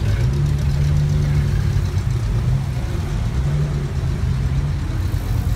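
Vintage car engine running at low revs as the car moves slowly off, its pitch rising a little, easing, then rising again.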